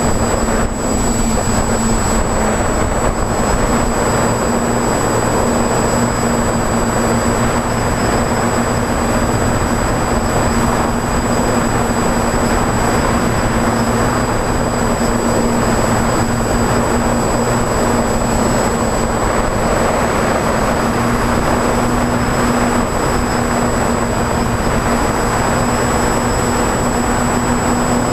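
TBS Discovery Pro quadcopter's electric motors and propellers running steadily in flight, heard from the onboard camera. It is a steady hum with a thin high whine over a broad rush of air.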